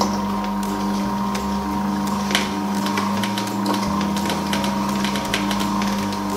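ReBoot Master 6000 slow juicer running with a steady motor hum while its auger crushes frozen strawberries through the blank sorbet screen, giving many irregular crackling, crunching clicks.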